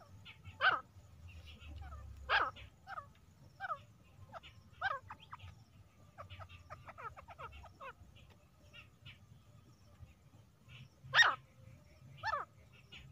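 Female grey francolin calling: loud, short, harsh notes falling in pitch, spaced a second or more apart, with a quicker run of fainter falling notes in the middle and two loud calls near the end.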